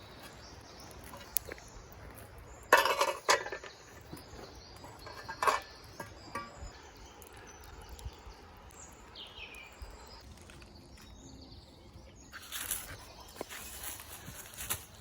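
Woodland ambience with birds calling. It is broken by a few short, loud noises, the loudest about three seconds in and again around five and a half seconds.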